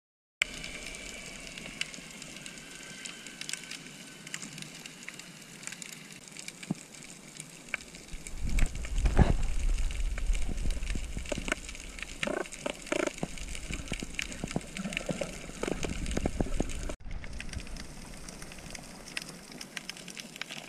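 Underwater coral-reef ambience recorded from a camera underwater: a constant fine crackling of the kind snapping shrimp make on reefs, with louder rumbling and sloshing water movement around the middle. The sound cuts off abruptly about 17 seconds in and resumes as similar crackling.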